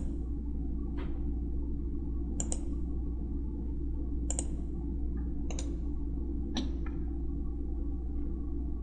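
Scattered computer mouse clicks, some in quick pairs, over a steady low hum.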